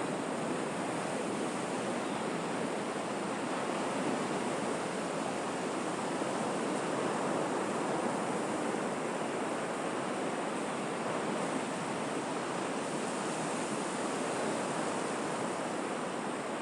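Sea surf: a steady, continuous wash of waves with only slight swells in level.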